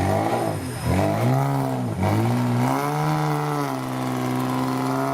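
Off-road 4x4's engine revving up and down several times in quick rises and falls, then holding a steady pitch for the last second or so.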